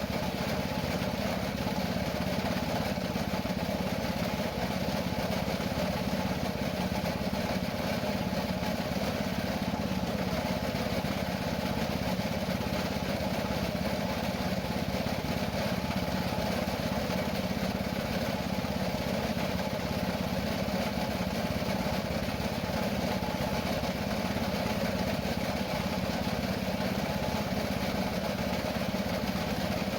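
A small engine or motor running steadily at an even speed, with no change in pitch or loudness.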